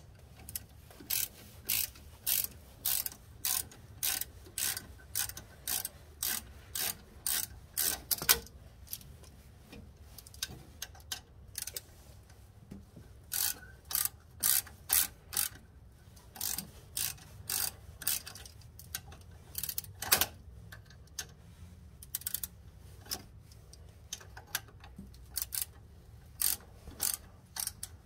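Ratchet wrench clicking in repeated back strokes, about two a second, in runs broken by short pauses, as a bolt is turned out. A couple of sharper metal knocks stand out among the clicks.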